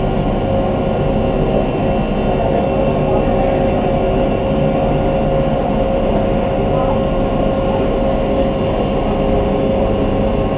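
Resort ferry boat's engine running at a steady cruise: a constant, even drone with a steady hum of several tones over a low rumble.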